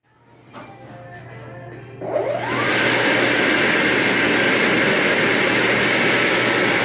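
Electric blower motor spinning up with a rising whine about two seconds in, then running with a loud, steady rush of air.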